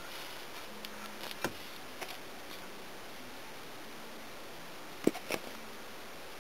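Crude arc between pencil-graphite electrodes on a DC supply: a faint steady hiss broken by a few sharp crackles, the loudest pair about five seconds in, as the graphite burns away.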